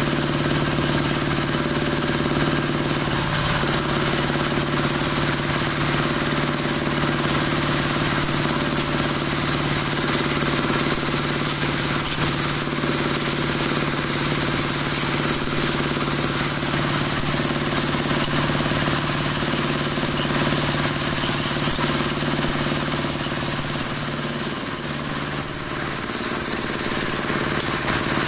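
Dowel-making machine for broom handles running steadily, a constant motor hum with a high whine above it. It eases off slightly about 24 seconds in, then picks up again.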